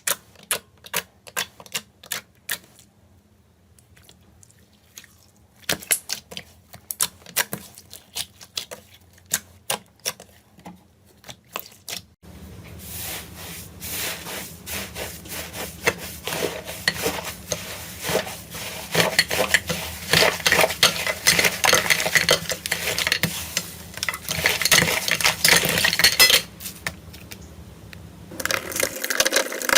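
Slime being pressed and poked by hand. First comes a run of sharp, separate clicks and pops, then, about twelve seconds in, dense continuous crackling that eases off near the end.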